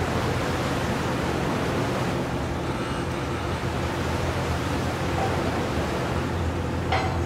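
Moored car ferry's engines running with a steady low drone and hum, under an even rushing noise. A brief sharp sound comes about seven seconds in.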